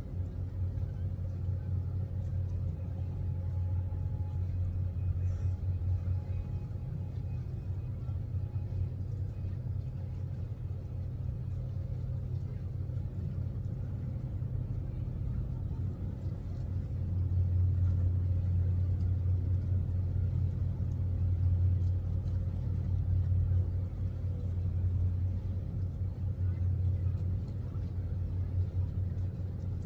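Steady low outdoor rumble, swelling for several seconds a little past halfway through.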